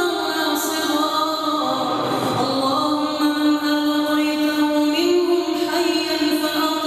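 A solo voice reciting the Quran in melodic, chanted tajweed style, drawing out long held notes. One note is held for a few seconds and then steps up slightly in pitch near the end.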